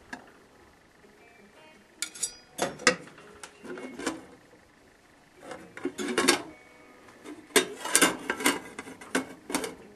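Stainless steel saucepan lid lifted and handled: scattered metal clinks and clanks, starting about two seconds in and coming thickest near the end.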